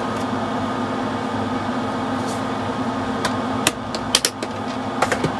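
Steady hum of a hobby paint spray booth's exhaust fan, with several short clicks and rustles of handling from about three seconds in.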